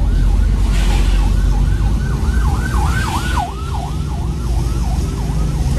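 Ambulance siren in a rapid yelp, its pitch sweeping up and down about three times a second, heard from inside a car over the steady low rumble of the car. It grows louder about halfway through, then fades.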